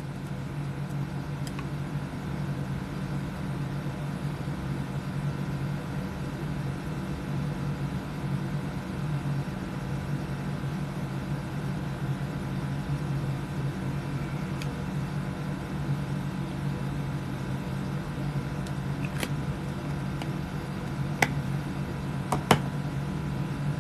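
Room air conditioner running with a steady hum, with a few small clicks near the end.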